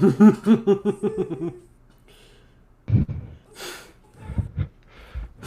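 A person laughing in a quick run of voiced bursts for about a second and a half, followed by a few quieter breaths and low thuds.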